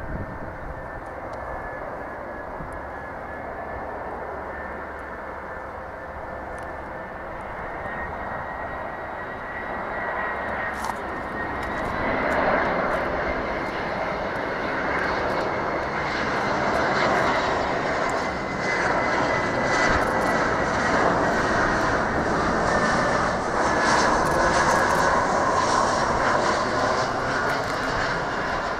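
Jet engines of an easyJet Airbus A319 airliner: a steady rushing drone with a high whining tone, growing louder about a third of the way through and staying loud.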